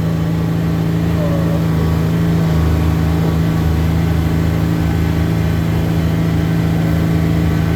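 Car engine running at steady, raised revs, with a constant low hum heard from inside the car.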